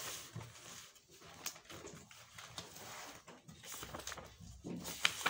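Quiet handling noise at a table: paper rustling and a marker on paper, with a few light taps.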